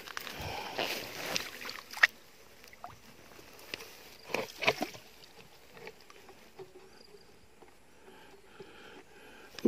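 Splashing and rustling in shallow water among wet grass, with a sharp knock about two seconds in and a few more short splashes a little before the five-second mark.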